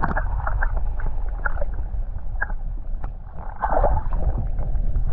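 Water heard from underwater with the microphone submerged: a muffled, steady low rumble of moving water with scattered bubbling clicks and pops.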